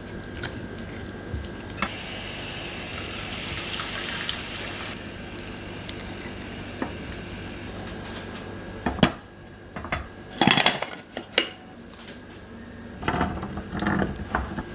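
Kitchen utensils knocking and scraping against dishes and a pan, with a few sharp clatters in the second half.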